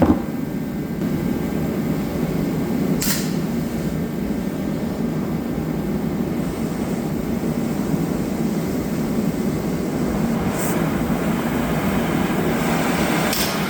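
A steady, low machine hum, with a few faint ticks.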